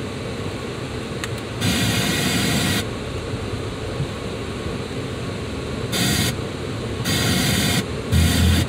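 Steady noise inside a slowly moving car, with several louder bursts of hiss that start and stop abruptly.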